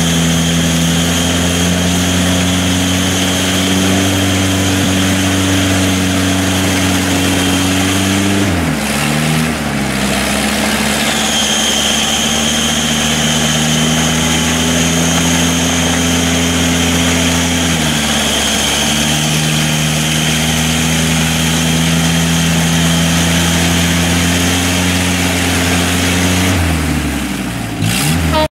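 GAZ-69 off-roader's engine held at high revs under heavy load as it churns through deep mud and water. The revs sag and climb back three times, and a thin high whine runs above the engine.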